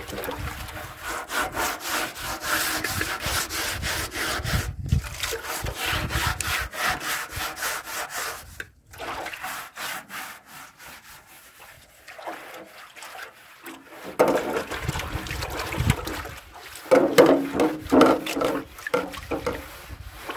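A hand rubbing and pressing wet curd against the bottom of a large aluminium basin: rapid repeated scraping strokes that die down for a few seconds about halfway, then pick up again.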